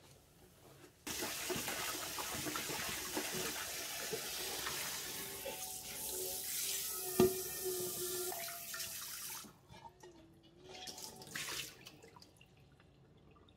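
Kitchen tap water running onto a cast iron wok in the sink, rinsing off the soap suds; the stream starts suddenly about a second in and stops after about nine seconds, with one sharp knock partway through. Afterwards only short splashes and trickles.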